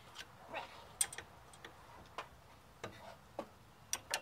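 Sharp metal clicks of a 10 mm wrench working the brake line nuts on a brake master cylinder, about nine single and paired clicks at irregular intervals.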